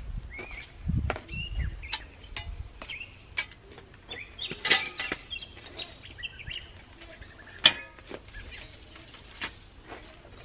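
Small birds chirping repeatedly in short calls, with a few sharp clinks and knocks from garden work, the loudest about three quarters of the way through.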